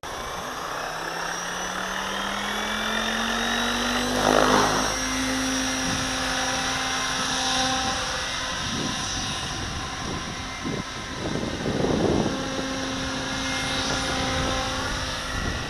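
Radio-controlled model helicopter: the rotor whine rises in pitch over the first few seconds as it spools up, then holds steady in flight. The rushing blade noise swells loudly about four seconds in and again around twelve seconds.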